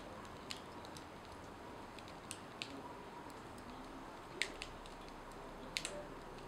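Charred corn-masa tortilla smouldering on a hot metal griddle, crackling with sparse sharp ticks and pops at irregular intervals, a pair of them close together near the end.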